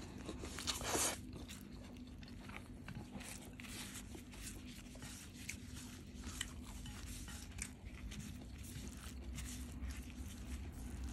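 A person chewing a mouthful of soft noodles and rice with many small wet mouth clicks, with a brief louder swish about a second in.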